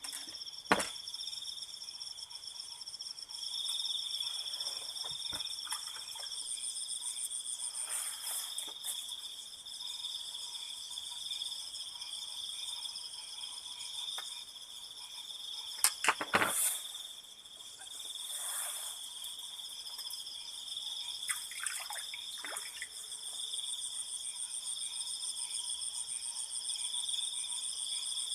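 Night insects chirring steadily in several high, finely pulsing tones. A few sharp knocks cut through, one about a second in and a loud cluster about sixteen seconds in.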